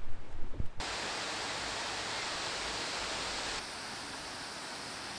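Steady rushing of water that starts abruptly about a second in and drops slightly in level a little past halfway.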